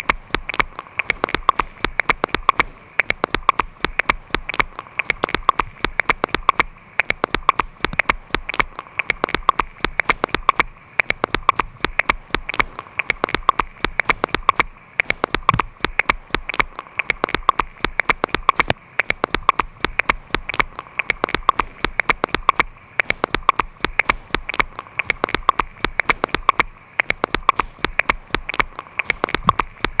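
A dense, steady patter of sharp clicks and crackles, like rain on a hard surface, swelling and dipping in a regular pulse about every two seconds.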